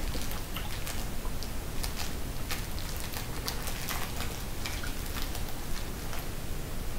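Plastic wrapper of a fun-size Snickers bar crinkling as it is torn open by hand: a scatter of sharp crackles over a steady hiss.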